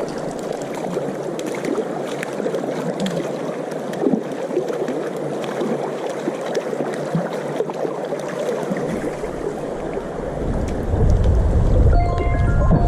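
Shallow river water running and gurgling, with small splashes and ticks. About nine seconds in, a low rumble joins it, like wind buffeting the microphone.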